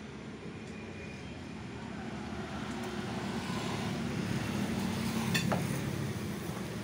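A motor vehicle's engine rumble swelling gradually as it comes closer, loudest about five and a half seconds in and then easing off, with a single sharp metallic click at its peak.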